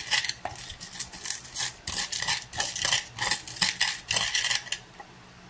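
A pestle grinding chillies and seasoning for sambal on a wooden cobek (mortar plate): repeated scraping and knocking strokes, about two to three a second, that stop near the end.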